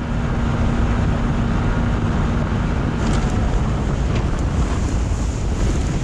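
A fishing boat running under power: wind buffeting the microphone and water rushing against the hull, with a faint steady motor hum through the first half.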